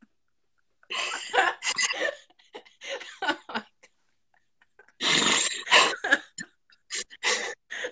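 Women laughing over a video call in two bouts, the second louder than the first.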